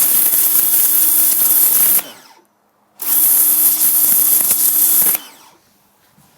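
Black & Decker PW 1300 TD electric pressure washer running, a steady motor hum under the loud hiss of the spray. It stops about two seconds in, starts again a second later and stops again about five seconds in.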